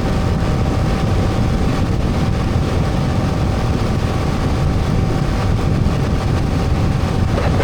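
Honda Transalp motorcycle on the move: engine running under a loud, steady rumble of wind and road noise.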